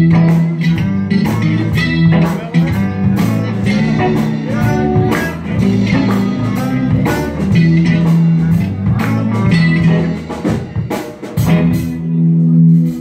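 Live blues band music: electric guitar with drums, and held notes from a wind instrument blown through a curved mouthpiece tube.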